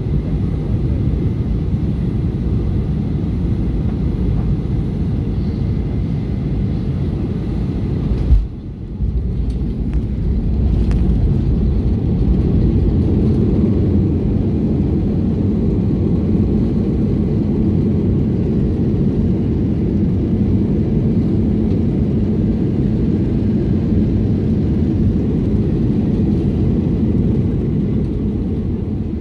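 Cabin noise of a Boeing 737 airliner on final approach, a steady low rumble of engines and airflow. About eight seconds in the main wheels hit the runway with a single sharp thump, and a couple of seconds later the rumble swells and stays loud as the jet rolls out on the runway, the rise typical of reverse thrust being applied for braking.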